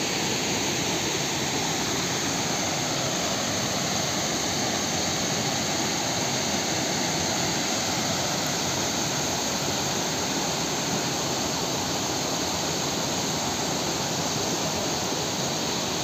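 Steady, unbroken rush of a waterfall's falling water.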